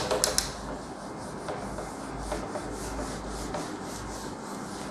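A cloth wiping a whiteboard clean in quick, repeated back-and-forth rubbing strokes, most forceful at the start.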